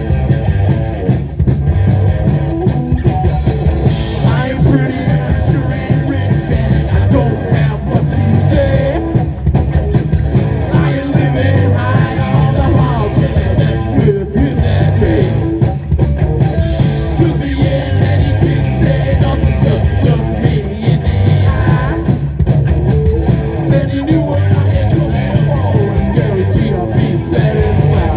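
Live rock band playing loud and fast on electric guitar and drum kit, without a break.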